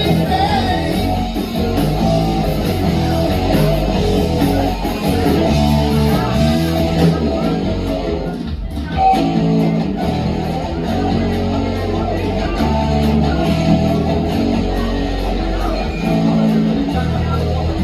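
Live band playing rock music, with guitar and singing. There is a brief break in the sound about halfway through.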